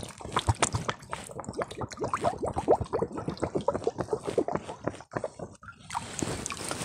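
Plastic jug being filled with river water, gurgling and glugging in a rapid run of pops, with a brief lull about five seconds in.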